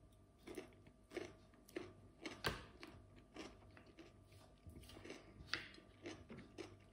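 Close-up chewing of crisp cucumber slices: a regular series of faint crunches, about one every two-thirds of a second, the loudest about two and a half seconds in.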